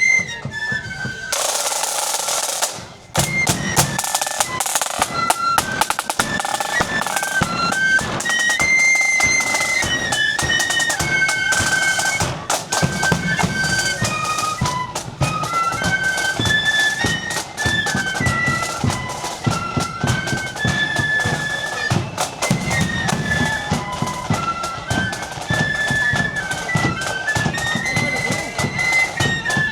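Marching band playing a tune: a high melody line over snare drum rolls and bass drum beats. A brief rush of noise about a second in.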